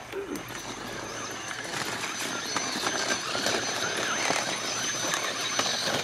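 Radio-controlled trail truck's electric motor and gearbox whining steadily at a high pitch, with scattered clicks and crunches from its tyres on rocky ground, getting louder as it comes closer.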